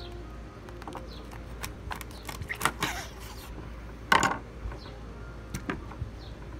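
Meat cleaver chopping through a bullfrog on a wooden board: scattered light knocks and a scraping stretch, then one loud chop about two-thirds of the way through.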